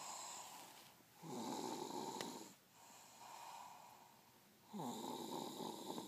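Someone asleep and snoring: two louder snores, each about a second and a half long, starting about a second in and again near the end, with quieter breathing between them.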